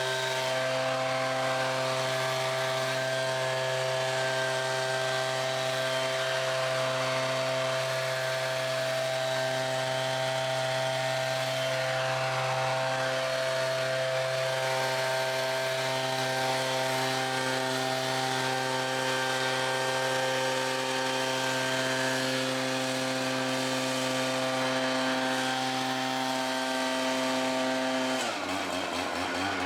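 Small gasoline engine of outdoor power equipment running at a steady high speed, its note holding level, then changing suddenly to a lower, wavering pitch near the end.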